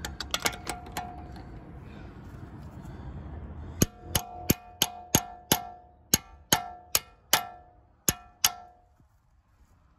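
A hammer striking a steel socket fitted over a car's locking wheel nut, driving the socket onto the nut so it will grip. The strikes come about two or three a second, about a dozen in all, each a sharp metallic clang with a brief ring, starting a few seconds in after a few light clinks as the socket is fitted.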